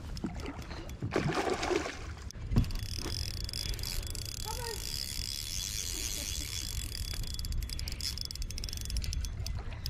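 Water splashing as a hooked salmon fights at the surface, over wind rumbling on the microphone, with a faint steady high hiss from about three seconds in.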